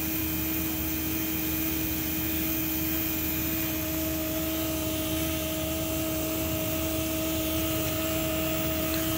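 12-volt macerator pump running steadily as it pumps camper waste water out through a hose: a constant motor hum with a steady tone in it.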